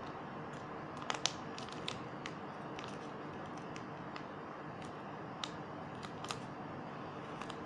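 Scissors snipping and handling plastic shampoo sachets: irregular small sharp clicks and snips, the loudest a little over a second in, over a steady low hiss.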